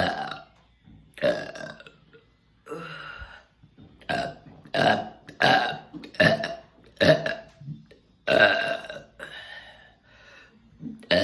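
A person burping loudly over and over: about a dozen long, deep, voiced burps in quick succession, some short and some drawn out.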